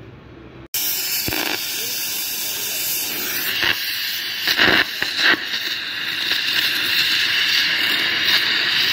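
Welding arc on aluminium, a steady loud hiss that starts abruptly under a second in, with a few short crackles near the middle.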